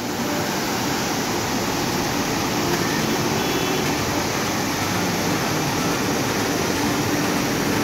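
Steady rushing of river water pouring out under the open sluice gates of a barrage and churning white below them.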